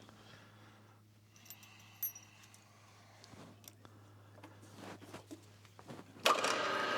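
Light metallic clicks and taps of small parts and tools being handled. About six seconds in, a milling machine's motor starts and runs with a steady whine.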